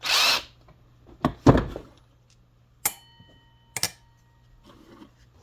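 Hand work on a small-engine carburetor with a socket, as the float bowl's two screws come out. It starts with a short rasping burst, followed by a couple of knocks. About three seconds in, a small metal part clinks and rings for about a second, and another click follows.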